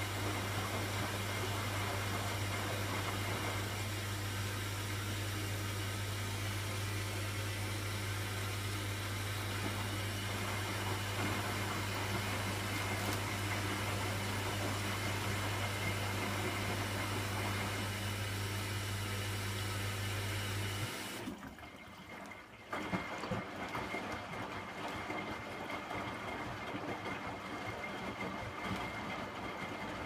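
Hoover front-loading washing machine on its 9-minute Refresh cycle, the drum tumbling wet laundry with water sloshing over a steady low hum. About two-thirds of the way through the hum stops and, after a short lull, rougher water swishing carries on.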